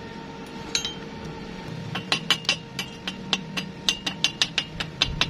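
Steel chipping hammer tapping slag off a fresh stick-weld bead: light, sharp metallic clinks, a couple about a second in, then a quick run of several taps a second from about two seconds in.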